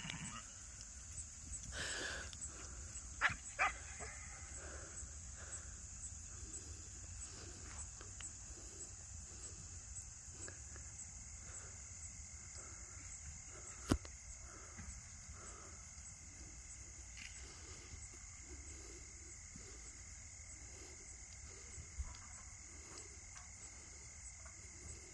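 Faint rural chorus of insects buzzing high and steady, with a low croaking call, frog-like, repeating about twice a second. A dog barks twice in quick succession about three seconds in, and there is a single sharp knock near the middle.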